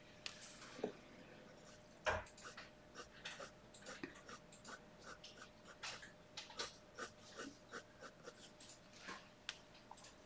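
Fineliner pen scratching short hatching strokes on sketchbook paper: a quick, irregular run of faint scratches, with a soft knock about two seconds in.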